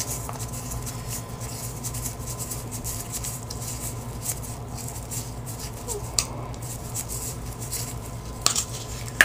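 Teflon thread-seal tape being pulled off its roll and wound around the threads of a tub spout pipe extension: faint crinkling and scratching, with a few sharper clicks in the second half, over a steady low hum.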